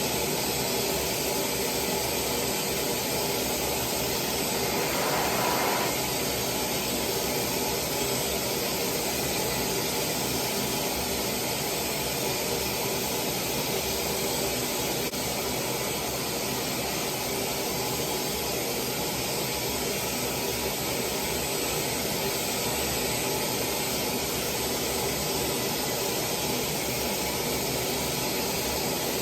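High-speed hair dryer blowing a steady stream of air while drying long hair, briefly a little louder about five seconds in.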